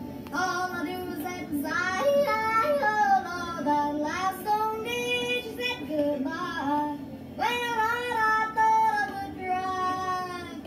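A young boy singing country-style with yodel breaks, his voice flipping quickly between low and high notes on long held phrases, played back through a TV's speaker.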